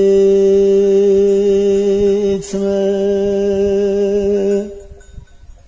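A man singing an unaccompanied uzun hava (bozlak), holding one long, steady note on the word "gitme". There is a brief break about two and a half seconds in, and the note ends about a second before the close.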